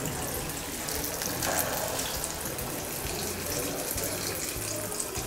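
Batter-coated purnam burelu sizzling and bubbling steadily as they deep-fry in hot oil in a kadai, with fine crackles through the hiss.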